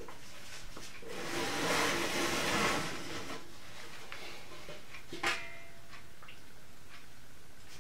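A large metal roasting pot being handled in a hot oven: a rushing hiss for about two seconds, then a sharp metal clink with a short ring about five seconds in as the lid comes off and the pot steams.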